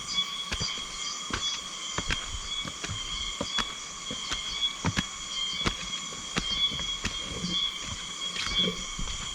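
Footsteps on a forest trail, a step roughly every 0.7 s, over a steady high-pitched insect chorus that carries several held tones.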